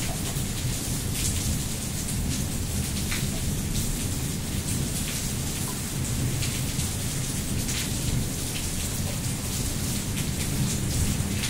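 Heavy rain falling steadily: an even hiss with scattered individual drop taps, over a constant low rumble.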